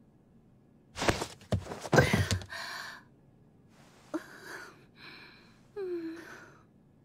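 A few dull knocks and rustling about a second in, then a woman's short breathy gasps and a soft falling sigh-like hum, without words.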